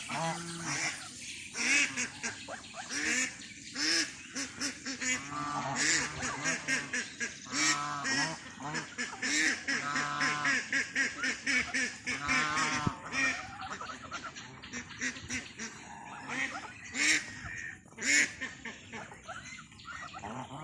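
Geese honking over and over, several birds calling at once in short overlapping calls.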